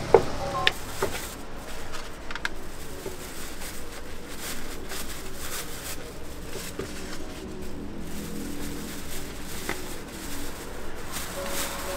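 A few sharp knife chops on a wooden cutting board in the first second, cutting sundae and offal. After that, a plastic bag rustles as it is packed and tied, over a steady hum of street traffic.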